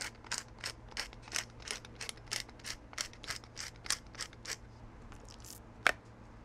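Pepper mill grinding peppercorns: a steady run of crunchy clicks, about three a second, that stops after about four and a half seconds. A single sharp knock follows near the end.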